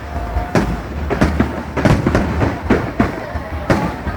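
Fireworks going off in a quick, steady series of bangs, about two or three a second, over a low continuous rumble.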